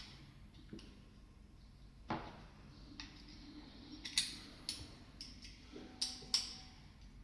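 A few faint, scattered clicks and taps of a 3 mm Allen key and small screws as the screws of a replica pistol's engine frame are driven down.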